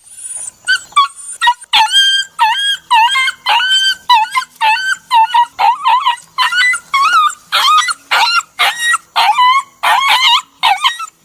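A dog yelping and whimpering in pain: a rapid series of short, high-pitched cries, about two a second, each bending up and down in pitch.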